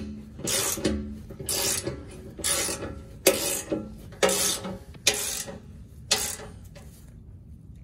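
Hand socket ratchet clicking in short strokes, about one a second and seven in all, as it runs in a bash-plate bolt. The clicking stops near the end.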